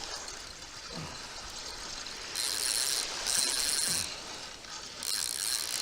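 Fishing reel buzzing in three short bursts while a hooked fish is fought on the line.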